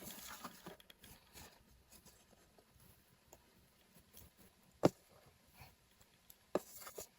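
A quiet room with two faint short taps, as small toys are handled and set down: one about five seconds in, another near the end.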